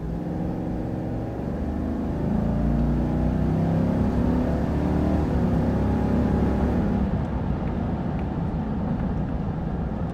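Chevrolet Silverado's 6.2-liter V8 accelerating under throttle, heard from inside the cabin. The engine note climbs in pitch and grows louder for about seven seconds, then drops back. It is not super loud.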